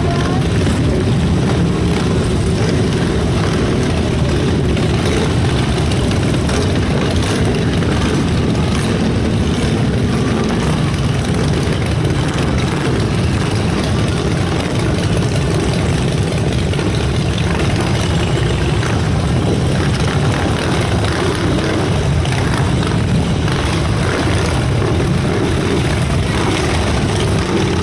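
Engines of a procession of motorcycles, cars and trucks rolling past, many running together in a steady, continuous rumble with no single vehicle standing out.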